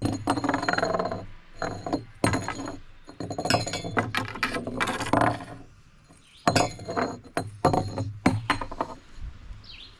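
Repeated clinks and knocks of small hard objects being handled, with a lull about two-thirds of the way through.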